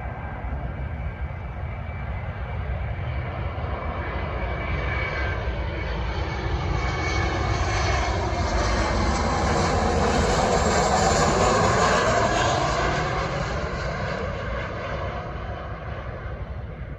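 Jet airliner flying past, its engine noise swelling to a peak about two-thirds of the way through and then fading away.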